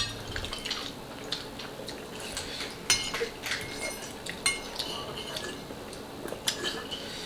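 Eating utensils clinking and scraping against bowls, with a few scattered short clicks.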